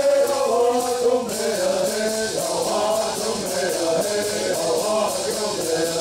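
Southern California bird song: a group of singers chanting in unison over the steady, even shaking of gourd rattles.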